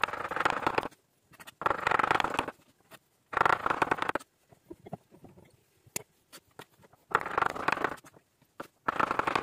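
Kitchen knife slicing salted cucumbers on a wooden cutting board: quick runs of knife strokes, each about a second long, five runs in all, with a longer pause in the middle.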